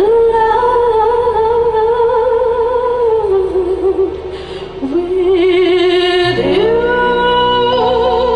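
A woman singing long held notes with vibrato and no clear words, over live band music; the line dips lower midway and slides up into a new sustained note near the end.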